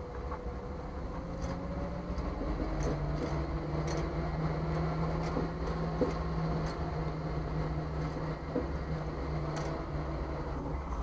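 Jeep CJ5 idling, with irregular sharp metallic pops and clicks from the front end as the steering wheel is turned back and forth. The owner cannot pinpoint whether the U-joints, the ball joints or the steering components are at fault.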